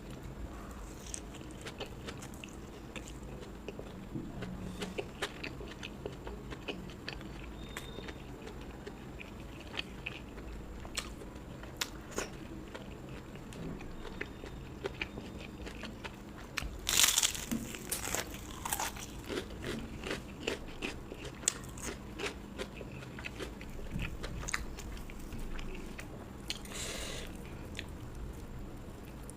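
Close-miked eating: a person chews with many small mouth clicks. Loud crunchy bites come about halfway through and again near the end, the crunch of crisp fried food or papad.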